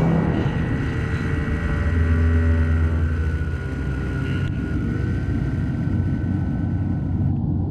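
Paratrike's paramotor engine and propeller running steadily in flight, a strong low drone with wind rushing over the camera mounted on the trike.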